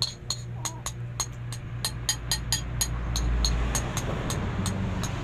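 Quick, irregular metallic clicks, several a second, from a metal wristwatch bracelet as a baby mouths and gnaws on it. A steady low hum runs underneath, with a low rumble swelling about three seconds in.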